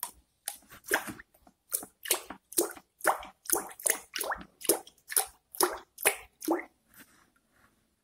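Acid slurry (LABSA) pouring from a plastic can into a bucket of water. The thick stream lands as a regular run of short splashes, about two a second, which stops shortly before the end.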